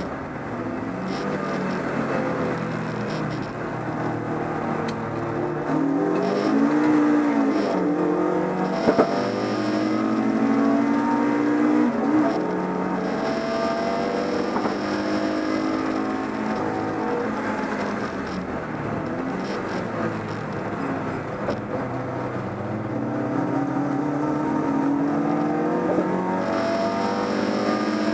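BMW 318is race car's four-cylinder engine heard from inside the cabin, revving up and down through the gears at racing pace, its pitch repeatedly climbing and then dropping. A sharp knock about nine seconds in.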